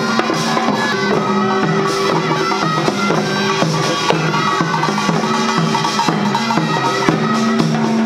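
A Korean traditional music and jazz crossover ensemble playing an upbeat piece. Drums and percussion keep a steady beat under a repeating bass line, with a melody on top.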